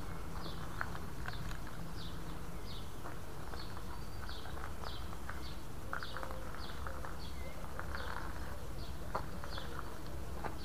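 A small bird chirping repeatedly, short high falling notes about twice a second, over a low steady outdoor rumble with scattered light knocks.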